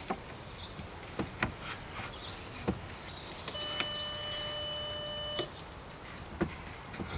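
Wooden bed boards knocking and clicking as they are pressed into the interlocking joints of a small support table inside a car. A steady squeak lasts about two seconds midway and stops with a knock.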